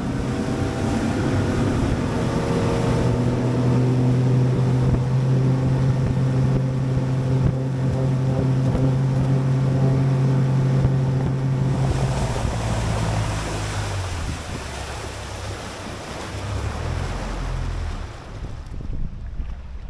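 Bass boat's outboard motor running steadily at speed, with wind buffeting the microphone and water rushing past the hull. About twelve seconds in, the engine note drops and fades as the boat slows, leaving wind and water noise.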